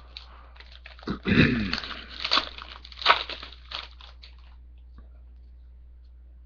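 Foil trading-card pack being torn open and crinkled: a run of crackling and clicks for about three seconds, starting about a second in, then only a low hum.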